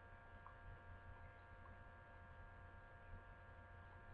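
Near silence: a steady electrical hum in the room tone.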